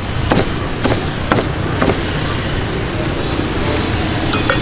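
Aluminium foil crinkling in sharp crackles as a gloved hand folds it around pieces of roast duck, about every half second at first and once more near the end, over a steady low hum of street traffic.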